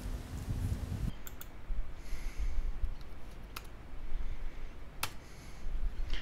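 A few separate sharp clicks of a computer mouse and keyboard, after a low rumble that stops about a second in.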